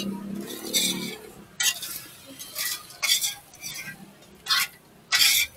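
Tongs raking and scraping glowing charcoal in a long metal satay grill trough, a run of short, harsh scrapes coming roughly once a second, as the charcoal fire is tidied before grilling.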